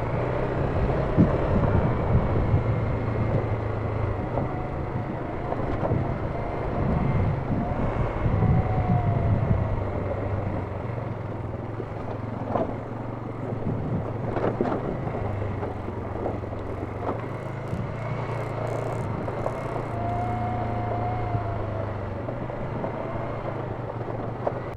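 Off-road vehicle engine running steadily on a trail, with a whining tone that slowly rises and falls and a few brief knocks.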